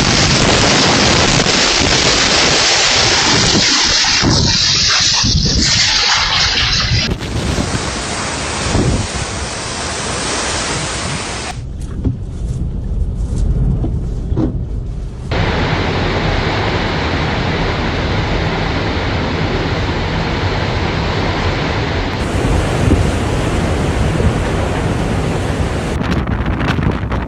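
Typhoon wind and heavy rain, a loud rushing noise with wind buffeting the microphone, changing abruptly several times as one storm clip cuts to the next.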